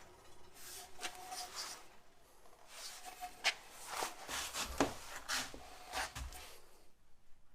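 Light handling sounds of wood in a workshop: a scatter of small knocks, taps and brief rubs, with a soft thump a little after six seconds. No saw is running.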